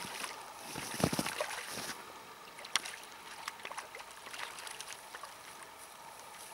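A hooked grayling splashing at the surface as it is reeled in toward the bank, over the steady rush of river water, with scattered light clicks and a louder cluster of them about a second in.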